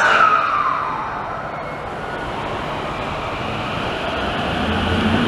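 Tōyō Rapid Railway 2000 series subway train pulling away from the platform. A falling tone sounds over the first second. The train noise then builds steadily, and a low traction-motor tone starts to rise near the end as it accelerates.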